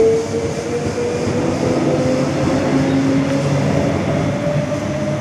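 Queensland Rail electric suburban train moving along the platform and away, with a steady rumble of wheels on rail and a motor whine that rises slowly and steadily in pitch as it gathers speed.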